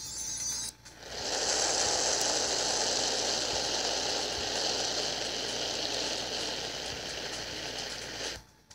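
Cartoon sound effect: a long, steady rushing hiss that starts about a second in and cuts off suddenly near the end.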